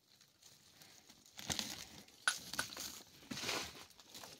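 Dry roots, twigs and leaf litter crackling and rustling as a hand pulls at them, in a few short scrapes with sharp clicks. The loudest click comes a little past two seconds in.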